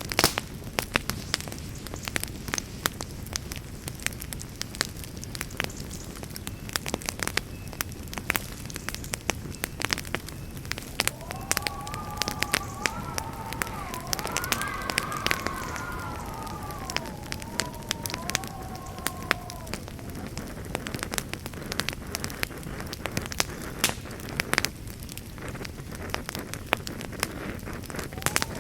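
Wood campfire burning with steady, dense crackling and popping over a low rumble of flames. Midway, a wavering whistling tone rises and falls for several seconds.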